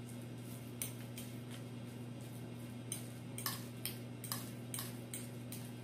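Metal fork clicking and scraping against a white ceramic bowl while mashing avocado and boiled egg into a spread. About ten light, irregular clicks come closer together in the second half, over a steady low hum.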